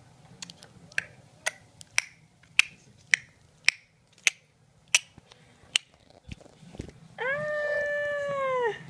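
Playful mouth noises: a run of about ten sharp clicks, roughly two a second, then a loud, high drawn-out 'ahh' squeal of about a second and a half that rises, holds and falls in pitch.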